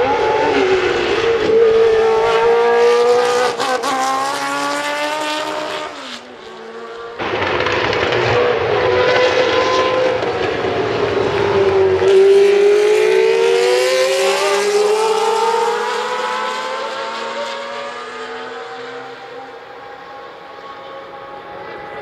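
Historic Formula One cars with Cosworth DFV V8 engines racing past. A single car goes by first, with its engine note dipping and then rising. After a brief break a group of cars follows, their engine pitch climbing steadily as they accelerate away and then fading out.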